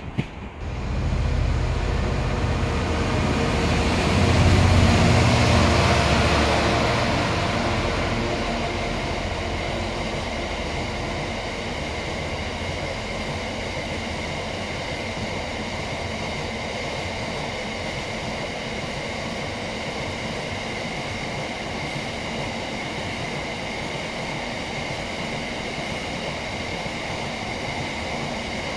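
Container freight train passing: the locomotive's engine is loudest for the first several seconds, then the container wagons roll by with a steady rumble and a faint steady high whine.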